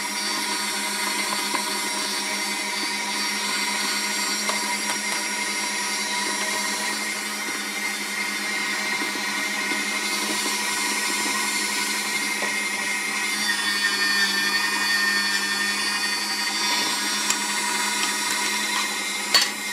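Electric meat grinder running steadily under load as it minces cooked carp fillet, a constant motor hum with a slight change in tone about two-thirds of the way in. There is a sharp click near the end.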